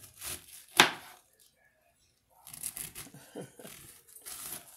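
Knife slicing through a raw green cabbage on a plastic cutting board: crisp crunching and cracking of the leaves. One sharp crack about a second in, a pause, then a run of smaller crunching cuts.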